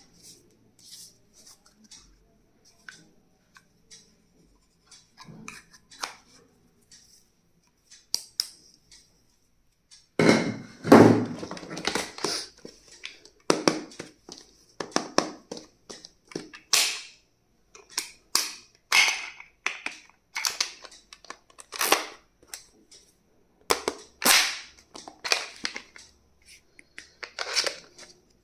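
Plastic packaging and stationery being handled and unwrapped: irregular crinkles, crackles and clicks, sparse and faint for about the first ten seconds, then louder and busier.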